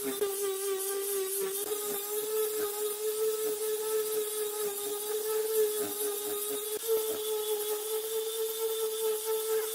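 A small electric power tool's motor running steadily at one high pitch, with light ticks from the work over it.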